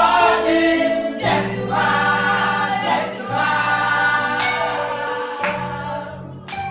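Choir singing a gospel song over a band, with held sung notes, a steady bass line and a few sharp percussive hits; it gets quieter near the end.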